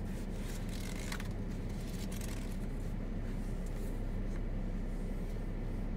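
A steady low hum of outdoor background noise, with light scratchy rustles about one and two seconds in; no thunder is heard.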